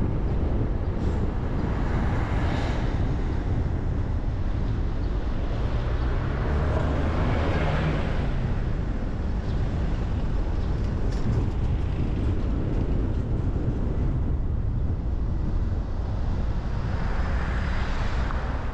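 A car driving on city streets: a steady low rumble of engine and tyres on the road, swelling louder three times, with a few faint ticks a little past the middle.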